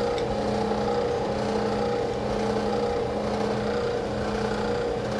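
Steady, even machine hum with a few constant low tones, the running drone of a restaurant kitchen's equipment.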